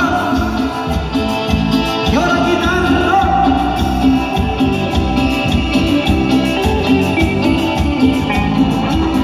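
Live Latin dance band playing through PA speakers, with a steady beat and singing.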